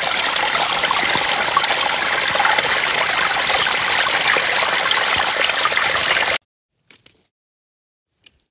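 Shallow spring water trickling steadily over mossy rock into a clear plastic water bag being filled. It cuts off suddenly about six seconds in, leaving near silence with a couple of faint clicks.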